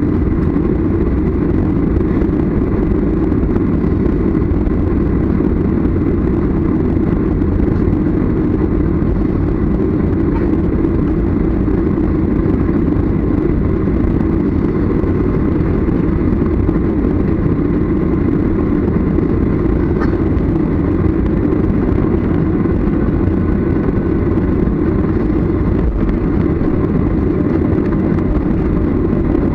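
Steady low rumble inside the cabin of a jet airliner taxiing after landing: its engines at low taxi thrust and the rolling airframe, unchanging throughout.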